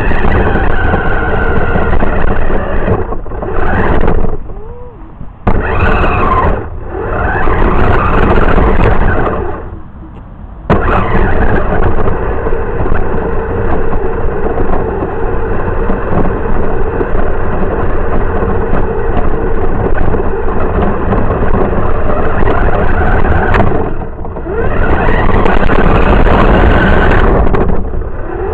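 The motor and drivetrain of an RC car, heard from a camera riding on the car, running with a whine that rises and falls in pitch as it speeds up and slows. Wheel and ground noise runs with it. The sound cuts out briefly about four and a half seconds in and again about ten seconds in, then runs on.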